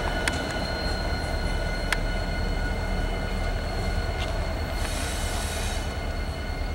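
Norfolk Southern EMD SD70ACe diesel locomotives, 16-cylinder two-stroke engines, passing slowly with a steady low engine rumble. Their wheel flanges squeal in a steady high pitch on the curve, with a few sharp clicks from the wheels on the rail and a brief hiss about five seconds in.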